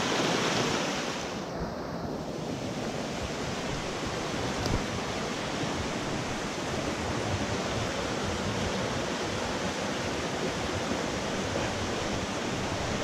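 A mountain trout stream rushing and cascading over mossy boulders, a steady noise of fast water close by.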